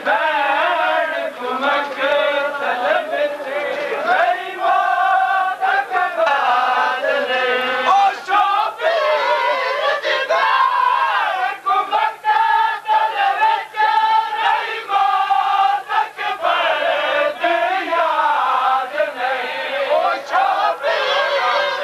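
Crowd of Shia mourners chanting a noha lament together, the voices rising and falling in a sung melody, with sharp hand slaps of matam (chest-beating) striking along with it.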